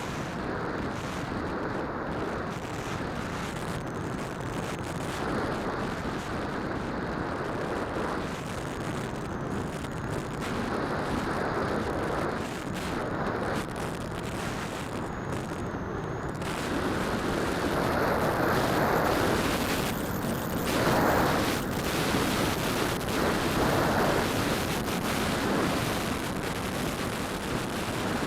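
Wind buffeting and propeller noise from a Phantom quadcopter in flight, heard through its onboard keychain camera's microphone as a dense rushing noise. The noise swells louder about two-thirds of the way through.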